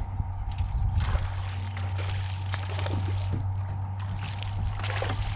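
Water splashing and sloshing beside a fishing boat, over a steady low hum.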